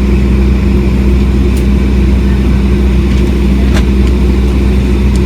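Airliner cabin drone while waiting on the ground before takeoff: a loud, steady low hum with a constant tone.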